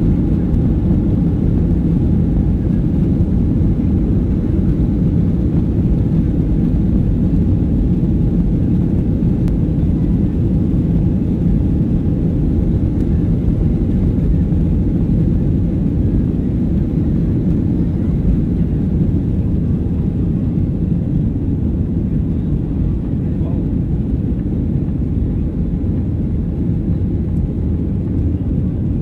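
Boeing 737-800 jet engines (CFM56) at takeoff thrust, heard from inside the cabin: a loud, steady low-pitched noise with the rumble of the takeoff roll, easing slightly after the jet lifts off in the second half.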